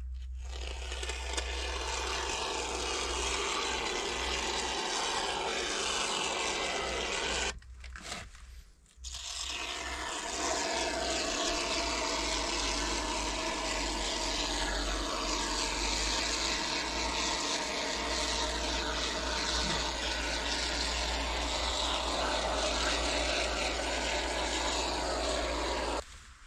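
Continuous scraping noise over a steady low hum, broken off for about a second and a half around eight seconds in.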